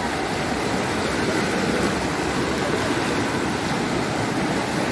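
River water rushing, a steady even noise with no breaks.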